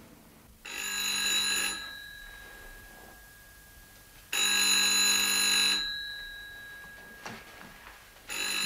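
Rotary-dial desk telephone's bell ringing for an incoming call: two rings about three and a half seconds apart, with a third starting near the end. Each ring trails off in a fading tone.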